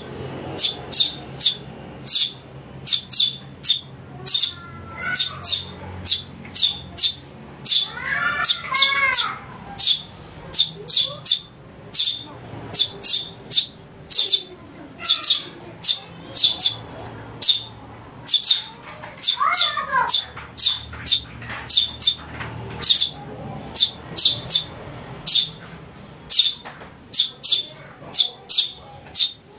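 Young Eurasian tree sparrows chirping in a steady, rapid series of short, high chirps, about three a second. A lower, wavering call cuts in twice.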